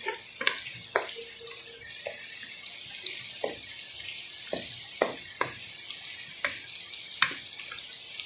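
Sliced bitter gourd frying in hot oil in a steel pan: a steady sizzle and crackle, with scattered sharp clicks as a wooden spatula stirs the slices.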